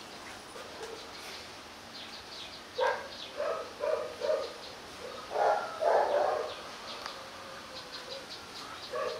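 H'Mông bobtail village dogs giving short yips and whines. A quick run of four calls comes about three seconds in, two louder, longer ones follow around six seconds, and another starts right at the end.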